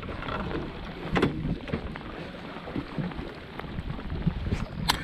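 Steady rumble of wind and boat noise at sea, with scattered knocks and clicks from a fishing rod being handled in its metal rod holder, and one sharp click near the end.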